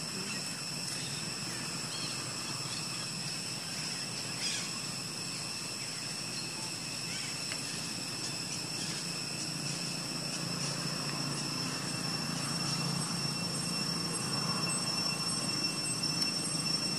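Outdoor ambience: a constant high-pitched drone under a low engine-like rumble that grows louder in the second half, with one short click about four and a half seconds in.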